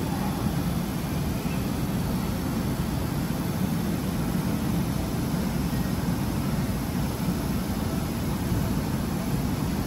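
Steady low hum of a Keisei 3000-series electric commuter train standing at the platform.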